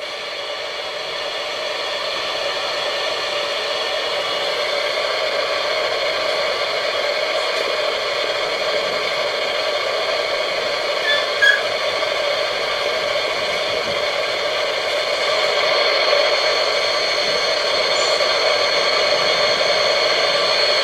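Sony ICF-2001D receiver switched to AM, its speaker giving a steady hiss laced with several constant whining tones of interference rather than a clear station. The owner blames too much equipment switched on around it. A brief click comes about halfway through.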